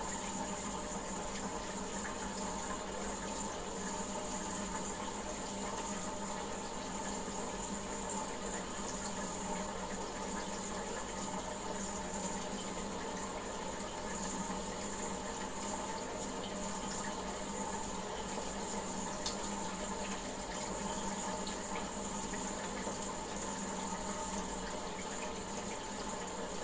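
Aquarium filter running: a steady trickle of water with a constant hum that does not change.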